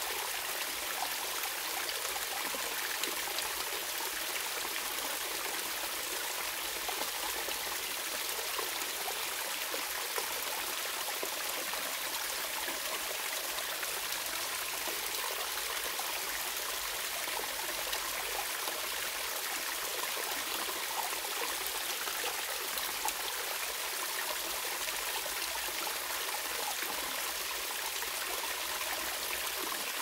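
Water of a small waterfall and stream running and splashing in a steady, even hiss, bright with little low rumble.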